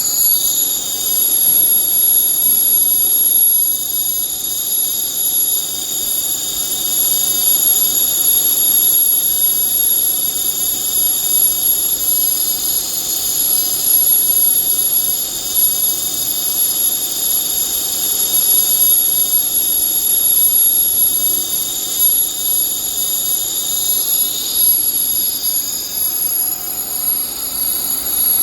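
A machine running with a steady high-pitched whine made of several tones, which wavers briefly in pitch near the end.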